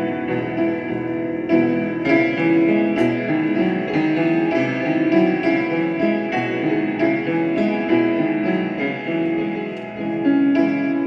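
Music played on a keyboard instrument: a slow tune of held notes and chords, with a new note struck about once a second.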